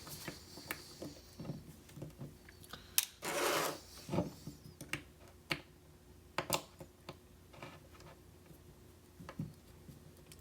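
Small metal hand tools clicking and scraping irregularly against a lock as a screwdriver that is not the right bit is worked at its star-head screws. There is a short scrape a little after three seconds.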